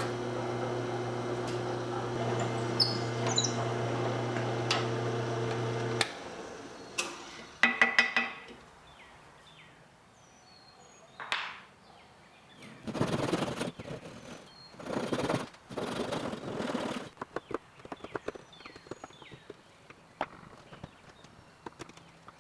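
A woodworking power tool's motor runs steadily and shuts off about six seconds in. Then come a ringing clatter, a few short noisy bursts, and many light clicks and taps of handwork.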